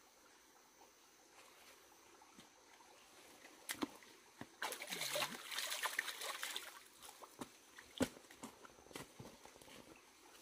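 Water sloshing and splashing for about two seconds in the middle, with a few sharp knocks before and after.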